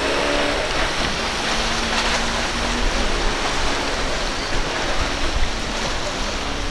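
Steady rush of surf and churning spray as a small outboard-powered center-console boat runs through choppy inlet waves, with a faint motor hum underneath.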